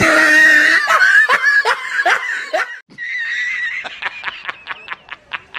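High-pitched laughter: loud squealing laughs with falling pitch for about three seconds, then after a brief gap a rapid snicker of short 'heh' sounds, about six a second, growing fainter.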